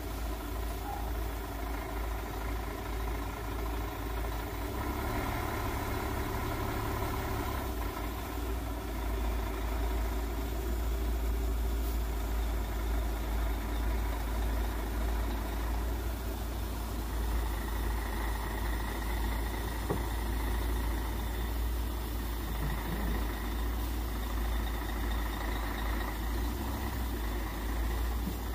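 Log-loaded truck's diesel engine running steadily at low revs, a low drone as the truck creeps slowly across a bridge.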